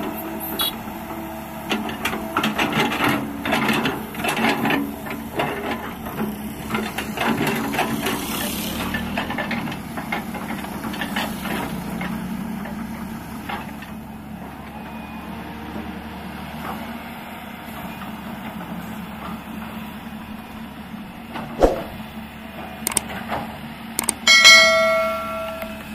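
Kobelco hydraulic excavator's diesel engine running while its bucket scrapes and knocks against soil, with many short clanks and scrapes in the first half; the engine then runs on more quietly. Near the end, a click and a short electronic chime.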